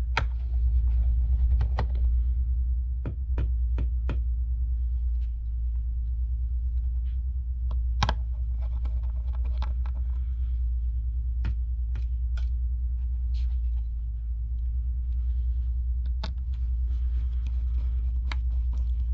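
Irregular small sharp clicks and taps of a precision screwdriver and tweezers against metal as screws are fitted into an iPad Pro's frame, over a steady low hum that is the loudest sound.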